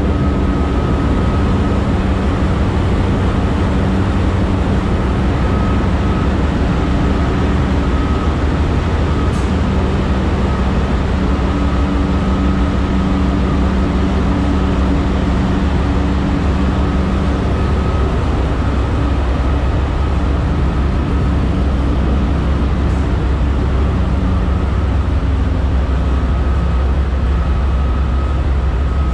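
Diesel-electric locomotive engines idling close by: a steady low rumble with a faint steady whine above it.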